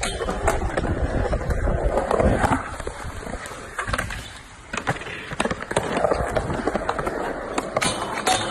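Skateboard wheels rolling on concrete with a rough rumble, broken by sharp clacks of the board hitting and grinding along a metal handrail, several near the end.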